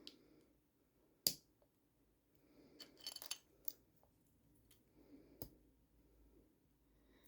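Small hard plastic LEGO minifigure pieces clicking as they are handled and pressed together: a few sharp separate clicks, the loudest about a second in, and a short run of clicks and crackling around three seconds in.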